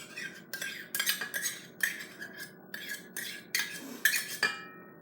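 Kitchen utensil scraping and clinking against a dish in a quick, uneven run of strokes with a ringing ping, as applesauce is scooped and measured out.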